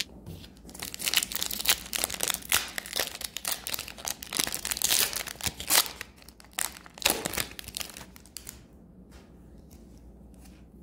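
Foil wrapper of an Upper Deck hockey card pack being torn open and crinkled by hand: a dense run of crackling and tearing that dies away after about eight seconds.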